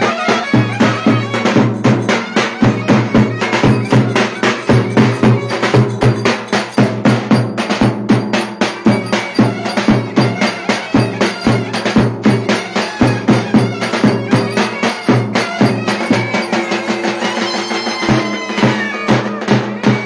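Live Turkish folk dance music: a clarinet playing a reedy melody over a fast, steady drum beat.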